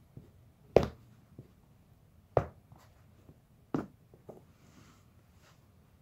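Sneaker soles set down on a carpeted floor: three dull thumps about a second and a half apart, with a few faint taps and leather creaks between them.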